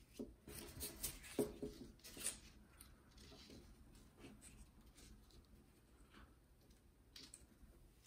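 Faint rustling and light tapping of cut paper being handled, folded and pressed together by hand as a glued tab is held in place. Most of the handling sounds come in the first couple of seconds, with a few light ones near the end.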